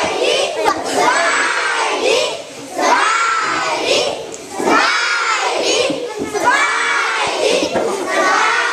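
A class of schoolchildren calling out together in loud unison, in several drawn-out phrases with short breaks between them: a formal spoken greeting to visitors.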